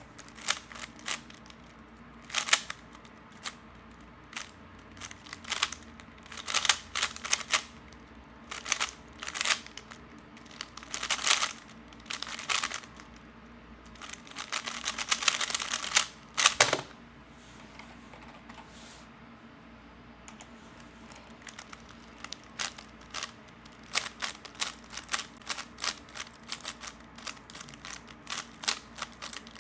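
3x3 Rubik's Cube being turned by hand: irregular runs of plastic clicking as the layers turn. A dense flurry of turns ends in one sharp knock a little past halfway, and the clicking comes quicker near the end.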